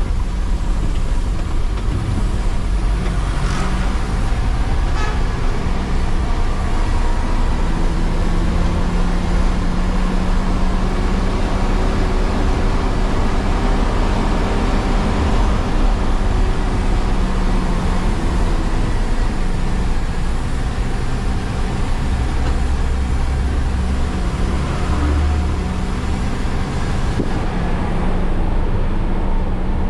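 A bus's engine and road noise, heard from inside the driver's cab while driving on a rough dirt road. The engine note drifts up and down as the speed changes.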